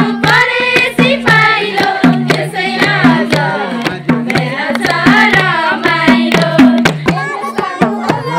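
Nepali folk music: a madal hand drum beats a steady rhythm, its low and high heads alternating, under singing voices.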